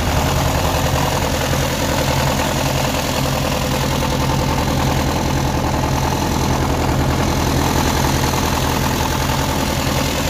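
Massey Ferguson 35 tractor's diesel engine idling steadily.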